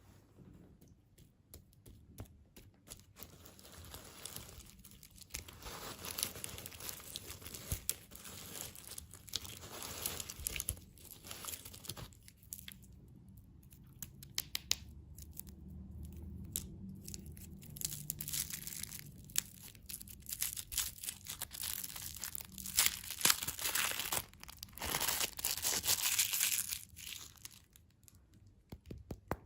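Plastic candy wrappers being torn open and crinkled by hand, in irregular crackly bursts with quieter pauses, loudest near the end.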